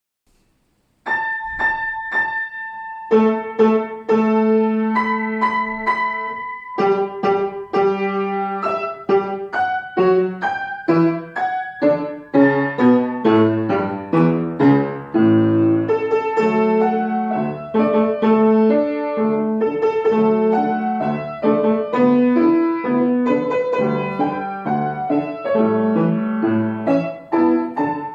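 Solo piano played by a child pupil, starting about a second in with a few repeated high notes, then going on in quicker notes over lower bass notes.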